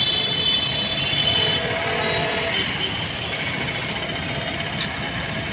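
City road traffic: scooters, auto-rickshaws and cars running steadily through a busy junction. A vehicle horn sounds for about the first second and a half.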